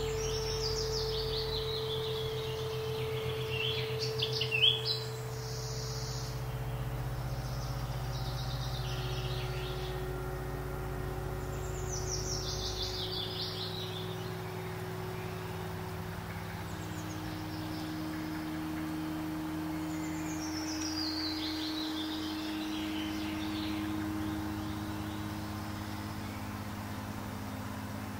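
Fantasy ambience: a low sustained drone whose pitch steps down every several seconds, with bird calls in high descending trills heard about four times. The loudest moment is a brief sharp call about four to five seconds in.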